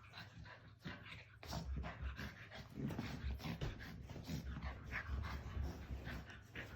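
Chow Chow puppy making small dog noises among a quick run of short scuffling clicks.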